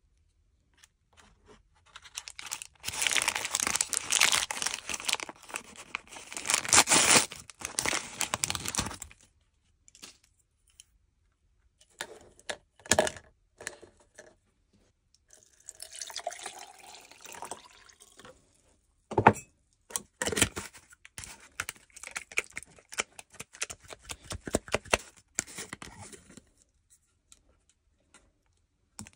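Crinkly plastic wrapper rustling and tearing as it is peeled off a mini doll, loudest in the first several seconds. Later come scattered sharp clicks, taps and crackles of the doll and wrapper being handled in a plastic cup.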